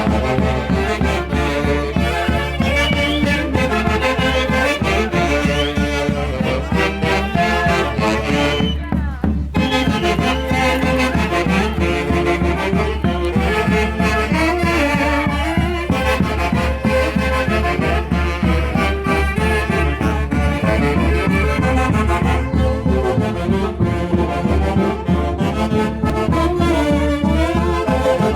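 Peruvian orquesta típica playing Santiago festival music: a melody on wind instruments over a steady, driving beat.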